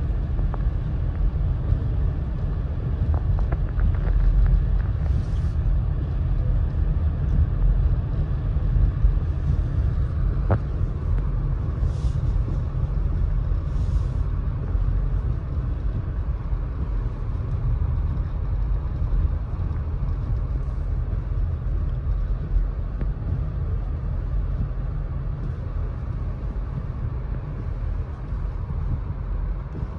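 Steady low rumble of a car driving on a snow-covered road, engine and tyre noise heard from inside the cabin, with a few faint brief swishes of the windshield wipers.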